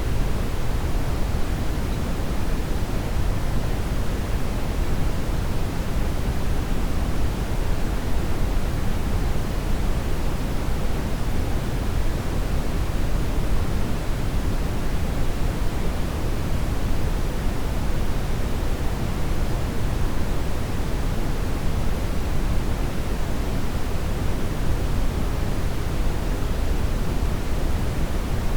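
Steady brown noise: an even, unchanging rushing hiss weighted toward the low end.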